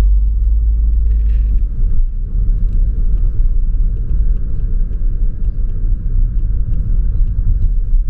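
Loud, steady low rumble of outdoor street ambience, with faint regular footsteps about two a second.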